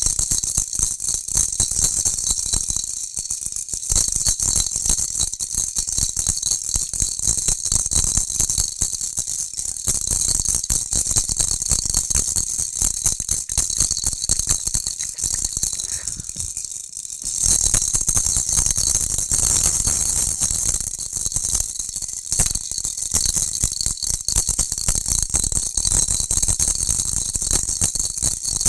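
A jhunjhuna, a baby's toy rattle, shaken continuously: a fast, dense, high-pitched rattling of the small beads or balls inside. It eases off briefly about three seconds in and again near the middle.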